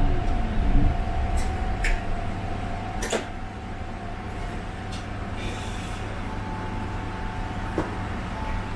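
Interior sound of a tram. The low rumble of running eases off about a second in as the tram slows, leaving a steady hum with a constant whine and a few sharp clicks.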